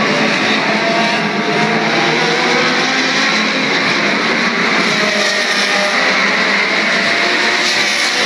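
Several historic 1960s Formula One racing cars running at speed, heard as a steady, loud mix of overlapping engine notes at different pitches.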